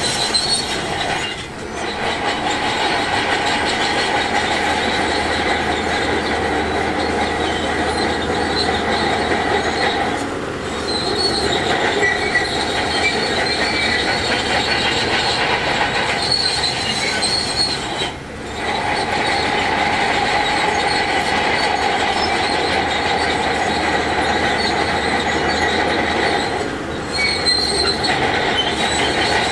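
Shantui DH17C2 crawler bulldozer working, its steel tracks squealing and clattering over the running diesel. The noise drops off briefly four times, about every eight or nine seconds.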